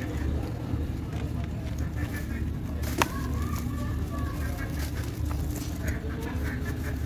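Hands breaking and crumbling a soft sand-cement block into a tub of watery cement slurry: gritty crunching and crumbling, with one sharp crack about three seconds in, over a steady low rumble.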